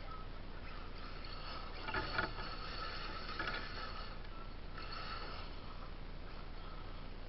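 RC buggy's electric motor whining as it drives over a dirt track, the whine rising and falling with the throttle. A couple of knocks about two seconds in as it bumps over the ground.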